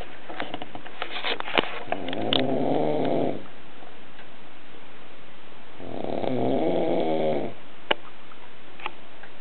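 A sleeping person snoring loudly. There are two long, low, buzzing snores about four seconds apart, each lasting about a second and a half, with a few faint clicks in the gaps.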